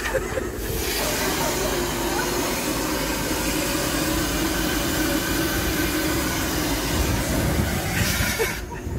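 Self-service vacuum hose station running after its on button is pressed: a steady, loud rushing hiss that starts within the first second and cuts off near the end.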